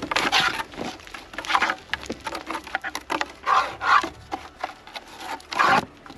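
Dry, stony soil and loose stones crunching and scraping in several short bursts.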